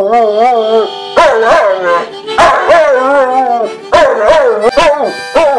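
Lab–vizsla mix dog howling along to a harmonica: a series of loud howls that waver up and down in pitch, breaking off every second or so, over the harmonica's held notes.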